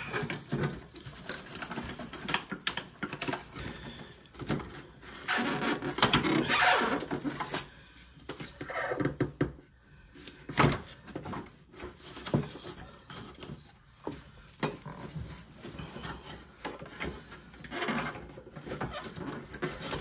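Plastic parts of a refrigerator's condenser fan assembly being handled with gloved hands: scattered clicks, taps and knocks with a few stretches of scraping and rubbing as the plastic cover and the fan motor bracket are worked loose.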